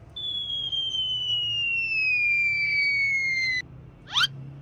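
Cartoon-style slide-whistle sound effect: one long falling whistle lasting about three and a half seconds that cuts off suddenly, followed a moment later by a quick rising zip.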